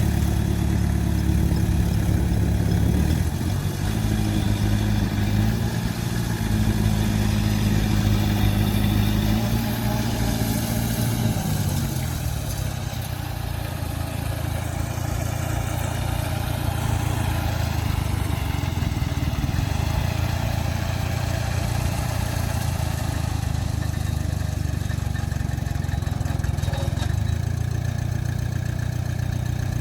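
Heavy diesel engine of the mud-recovery machinery running, its pitch rising about three seconds in, then falling back around twelve seconds in and running on steadily at a lower speed.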